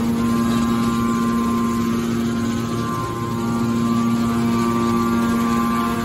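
Hydraulic aluminium can baler's power unit running, its electric motor and hydraulic pump giving a loud, steady hum.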